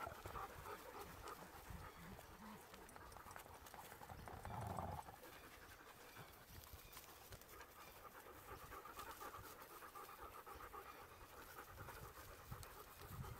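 Several dogs panting faintly at close range, with a brief louder sound about four and a half seconds in.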